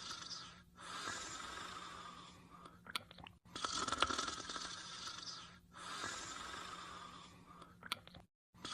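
Cartoon snoring sound effect: a loud raspy snore followed by a softer, breathier one, then a couple of short clicks, repeating about every four and a half seconds.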